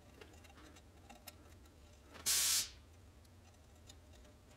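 Faint small ticks and scrapes of a solder wire dabbing flux paste onto a brass banjo fitting held in a vise. About two seconds in, a short loud hiss lasts about half a second.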